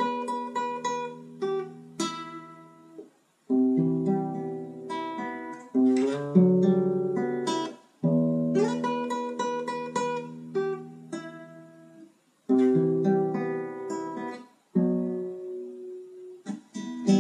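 Acoustic guitar strumming chords in a song's instrumental intro. Each chord starts sharply and rings out, with short breaks between phrases.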